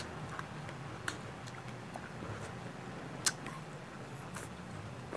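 Soft mouth sounds of eating an ice pop: a few small smacks and clicks, the sharpest about three seconds in, over a faint low hum.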